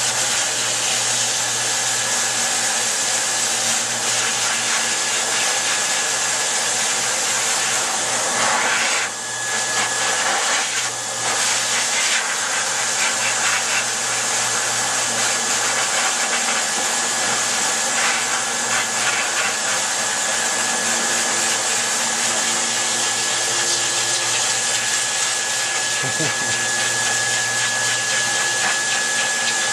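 Dog grooming dryer blowing a steady rush of air with a thin whine over it; the rush dips briefly twice near the middle.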